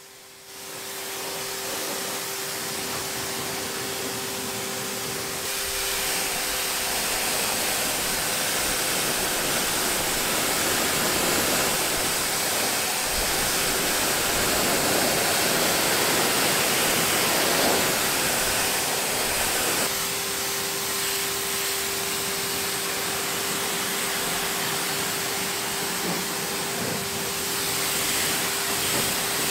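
Pressure washer spraying a wide fan of water over a van's engine bay during the pre-rinse: a loud, steady hiss of spray, with a faint steady hum underneath.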